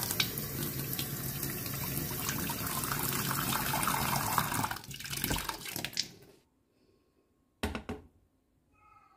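Kitchen tap running into a stainless steel saucepan in a steel sink, filling it with water; the flow turns uneven and stops about six seconds in. A brief knock follows near eight seconds as the pan is set down on an induction hob.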